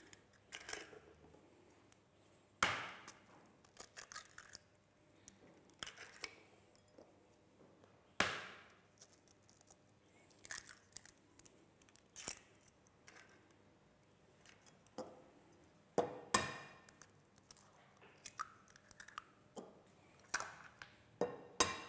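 Hen's eggs being cracked one after another into a glass bowl: a sharp crack of shell every few seconds, with faint crackling and clicks of the shells being pulled apart in between.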